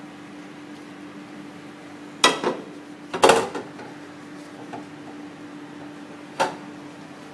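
Cookware clattering in a kitchen: a couple of sharp clinks about two seconds in, a short louder clatter a second later, and a single clink near the end, over a steady low hum.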